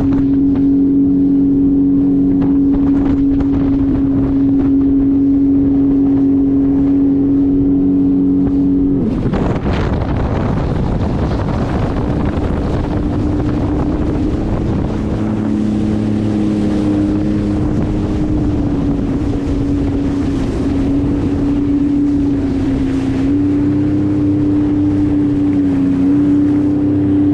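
Jet ski engine running at speed, a steady hum that wavers slightly in pitch after about nine seconds, when a rush of water and wind noise comes in.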